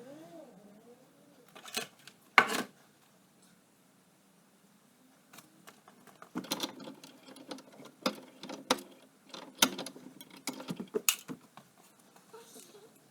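Hand tools and metal parts clinking and knocking while the Suzuki LT80 quad is taken apart: two sharp knocks about two seconds in, then a quiet stretch and an irregular run of clicks and clanks.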